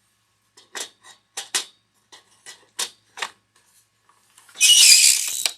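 Sharp clicks and knocks of a .308 round being handled and set in a Frankford Arsenal Pile Driver bullet puller, then about a second of loud rasping near the end.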